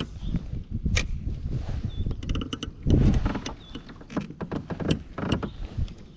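Knocks, clicks and rubbing of gear being handled aboard a fishing kayak, with a heavier thump about three seconds in.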